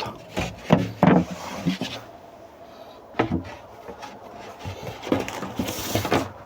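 Plywood panels being handled and laid into place: several wooden knocks and thumps, with scraping and rubbing between them.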